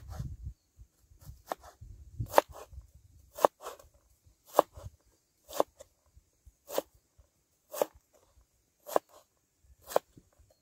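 Knife chopping a carrot on a wooden cutting board: sharp knocks of the blade on the board, about one a second.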